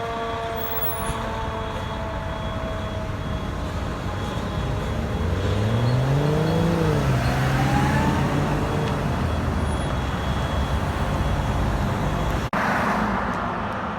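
A fire truck's Q siren winding down in a slow, falling whine and fading under the truck's engine. The engine revs up about five seconds in and then holds steady. Near the end the sound cuts off abruptly into a louder rushing noise.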